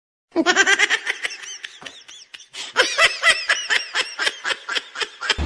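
High-pitched laughter in quick repeated pulses, in two stretches with a brief lull a little after two seconds in.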